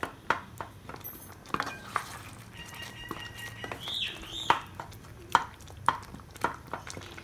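A wooden spatula stirring a thick curry in a metal pan, knocking and scraping against the pan roughly twice a second at an uneven pace.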